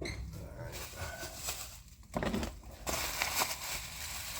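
Plastic packaging crinkling and rustling with a few light clicks as parts are unwrapped, the rustling growing denser about three seconds in.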